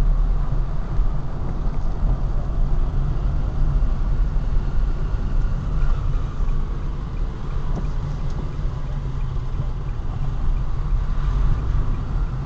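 Car on the move heard from inside the cabin through a dashcam: a steady low rumble of engine and tyre noise on wet road.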